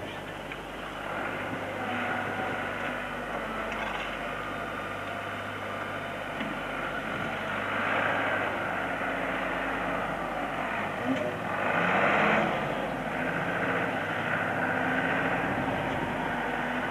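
Diesel engine of a backhoe loader running as it digs, its note steady with two louder swells, about halfway and about two-thirds of the way through.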